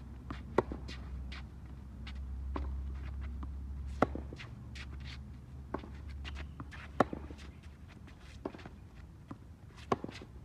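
Tennis rally on a hard court: the near player's racket strikes the ball four times, about three seconds apart, each a sharp pop and the loudest sound. Fainter hits from the far player fall in between, along with light footsteps on the court.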